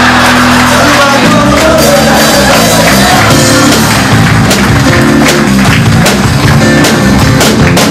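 A band playing loud, upbeat music, with moving bass notes and a steady drum beat.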